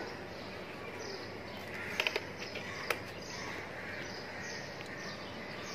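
Quiet outdoor background with faint bird chirping, and a quick run of sharp clicks about two seconds in, followed by one more click just under a second later.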